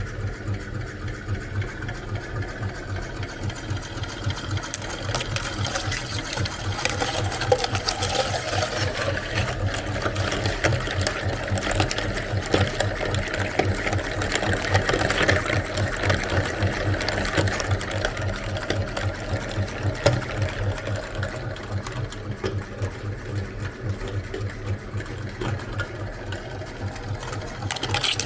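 Electric meat grinder running steadily, its motor humming with a regular pulse, with scattered crackling as eggs are crushed through it.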